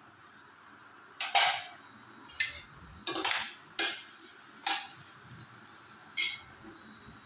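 A cooking utensil scraping and knocking against a pan as pieces of parwal (pointed gourd) are stirred while frying: about six separate short strokes, the loudest a little over a second in.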